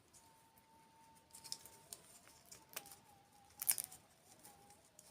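Close-miked eating sounds: scattered crisp crunches and mouth clicks from chewing a dessert, the loudest a little over three and a half seconds in, over a faint steady high tone.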